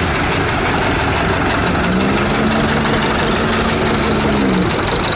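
Tractor engines running steadily. From about two seconds in, one engine's pitch rises a little, holds, and drops back after a couple of seconds.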